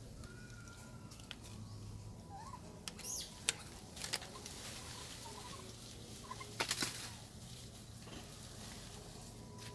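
Macaques moving and feeding in a tree: leaves rustling and twigs snapping, with sharp snaps about three and a half, four and six and a half seconds in. Faint high chirping calls sound between them.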